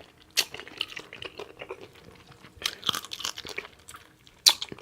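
A person chewing food with the mouth open, close to the microphone: irregular wet smacks and crunchy clicks, the sharpest about half a second in, around three seconds in, and just before the end.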